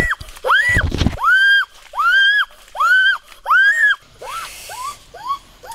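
High-pitched crying wails from a child's voice: about six drawn-out cries, each rising, holding and falling, roughly one and a half a second. About four seconds in they change to shorter, lower sobbing cries, about three a second.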